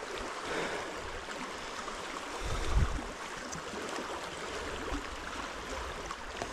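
Salmon river water rushing steadily over its bed. A brief low rumble swells and fades about two and a half seconds in.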